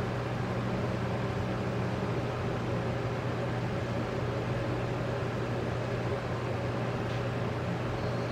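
Steady low machine hum under an even hiss, like a ventilation fan or motor running constantly; a faint high tone comes in near the end.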